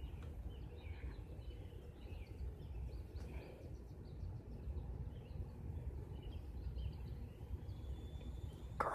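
Small birds chirping faintly now and then over a low outdoor rumble. A sudden loud noise starts at the very end.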